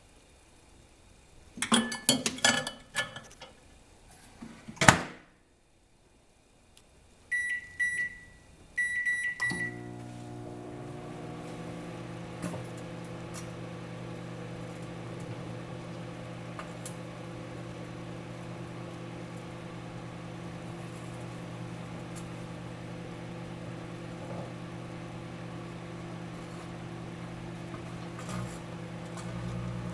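Microwave oven being started: a clatter of handling and a knock as the door shuts, two runs of keypad beeps, then the oven starts up about a third of the way in and runs with a steady hum.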